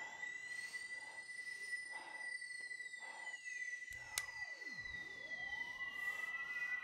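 Eerie electronic score: a steady high tone with slow gliding tones that sweep up and down across it, soft pulses about once a second, and a single click about four seconds in.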